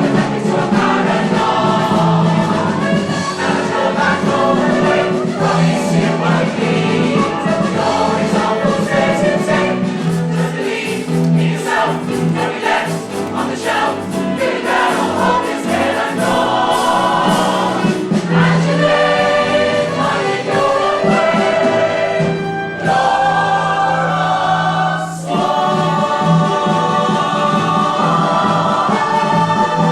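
Stage-musical cast singing together as a chorus, with instrumental accompaniment.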